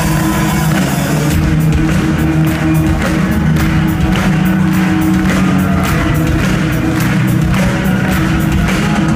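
Loud live rock music from a band in a concert hall, picked up on a phone: a thick, heavy bass and guitar drone, joined by a steady drum beat about a second and a half in.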